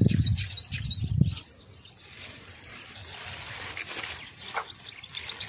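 Outdoor pond-side ambience: a steady, very high insect drone with runs of quick, repeated bird-like chirps near the start and near the end. A low rumble fills the first second or so, then fades.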